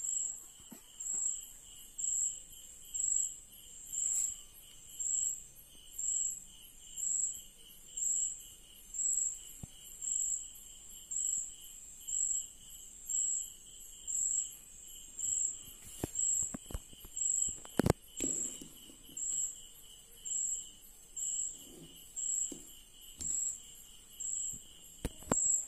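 An insect chirping steadily, a short high trill repeated about once a second. About two-thirds of the way through, a few sharp clicks and a brief rustle of cloth being handled.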